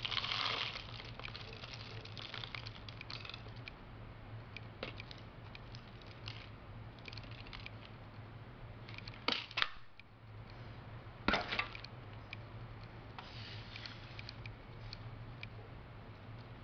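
Light plastic clicks and rattles of a hand-held plastic capsule-filling tray being tipped and tapped over a plastic tub, loose capsule shells knocking about, with two sharper knocks about nine and a half and eleven seconds in.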